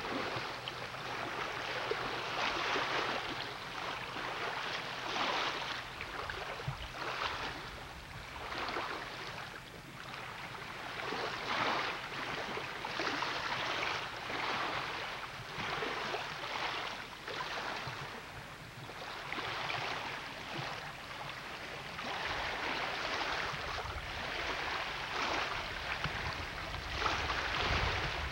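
Choppy lake water slapping and splashing against a dock, coming in uneven surges every second or two. Wind buffets the microphone near the end.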